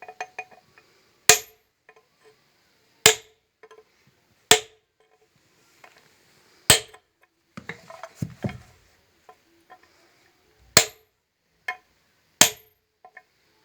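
Hammer blows driving the iron ring down on a 10-inch flour-mill grinding plate (pat): six sharp, ringing metal strikes, irregularly one to four seconds apart. Lighter taps and handling clatter fall between them, busiest a little past the middle.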